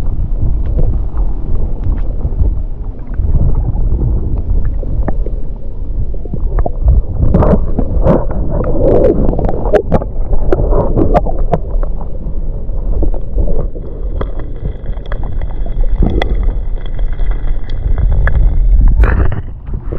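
Water sloshing and rumbling against a camera held underwater, the sound dull and muffled, with scattered small clicks and a faint steady high whine over the last few seconds. Near the end a brief splashy burst as the camera comes up through the surface.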